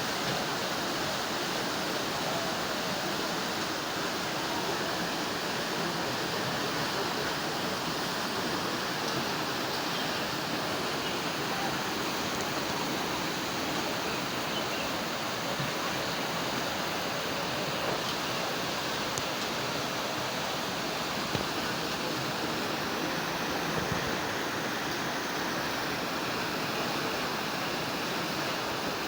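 Floodwater rushing in a steady, unbroken flow.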